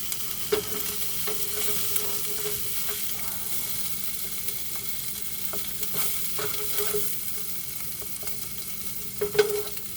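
Chicken in red chile sauce sizzling in a skillet, a steady hiss, with scattered clicks and short scrapes of a utensil against the pan as it is stirred and served.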